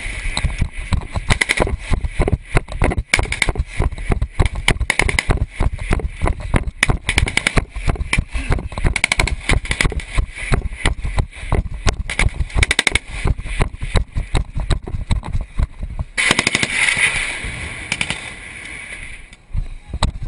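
Dense, irregular small-arms gunfire in a firefight, with sharp cracks coming several times a second, and a rush of noise about 16 seconds in.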